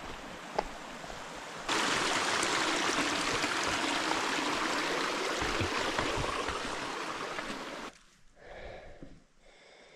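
Mountain stream running over rocks, a steady rushing that jumps suddenly louder about two seconds in and cuts off abruptly near the end.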